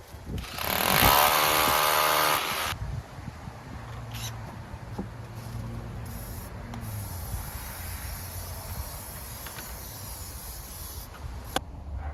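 A power tool spins up, its whine rising in pitch and then holding for about two seconds before it stops. A quieter low hum follows, with a few light knocks.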